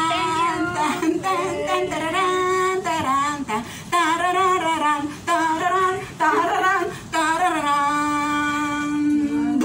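A woman singing unaccompanied, her voice wavering in pitch, ending on one long held note.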